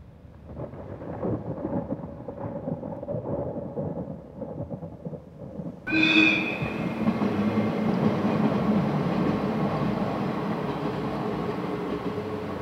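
A train running across a stone arch railway viaduct. About halfway through, the sound turns suddenly louder with a brief ringing tone, then settles into a steady rumble of the passing cars. Before that there is a fainter, uneven rumble.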